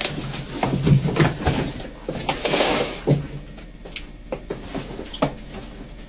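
Cardboard box being handled and moved: a run of knocks and thuds, with a brief scraping rustle about two and a half seconds in.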